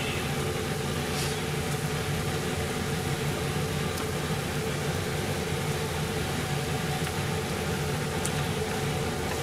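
Steady hum and hiss of a kitchen fan running, with a few faint clicks as chopsticks set cut negi leek pieces into the sukiyaki pot.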